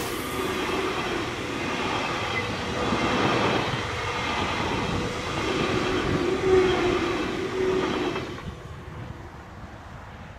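SBB ICN tilting train (InterCity-Neigezug) passing close at speed: wheel-on-rail running noise with a steady whine through it. About eight seconds in the sound drops abruptly to a much fainter rumble.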